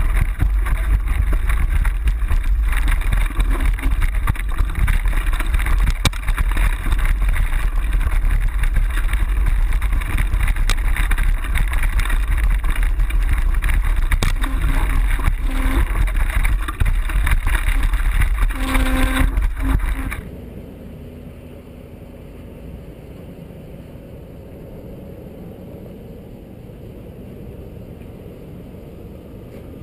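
Off-road vehicle engine running on a rough dirt trail, heard from an onboard camera with wind on the microphone. About two-thirds of the way in it cuts off suddenly to a much quieter, steady low engine rumble heard from a pickup truck's hood.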